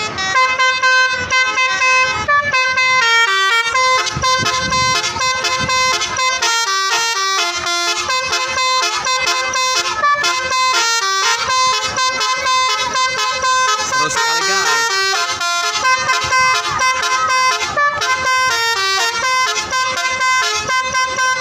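Indonesian telolet bus horn, a multi-tone air horn, playing a fast tune of short notes that step up and down in pitch, sounding without a break.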